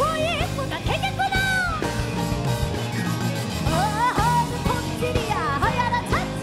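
A live band plays a Korean folk song in a rock-fusion arrangement: a woman sings the melody with bending, ornamented pitches over drum kit, electric guitar, bass and keyboard. Her voice breaks off briefly midway while the band carries on.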